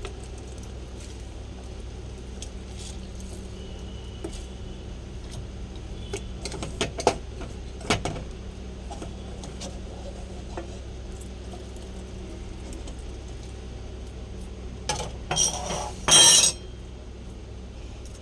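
Kitchen bowls and utensils being handled: scattered clinks and knocks, then a louder burst of clattering near the end, over a steady low background hum.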